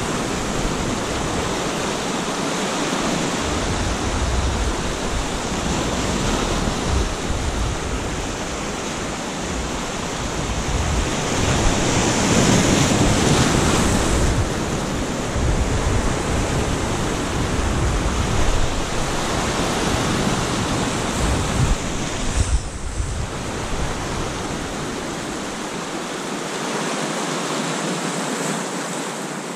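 Sea surf breaking and washing over rocks close by, a steady rush of white water that swells louder about twelve seconds in. Wind buffets the microphone with a low rumble that drops away near the end.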